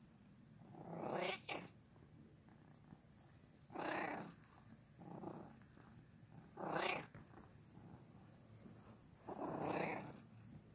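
Domestic cat making five short vocal sounds, spaced a few seconds apart, the middle one fainter, over a steady low purr.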